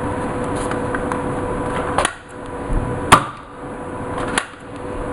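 Plastic handling of a Nerf wrist-mounted dart blaster as a dart is forced into its barrel: about two seconds of rubbing and rustling, then a click, a loud sharp snap about three seconds in, and a lighter click a second later.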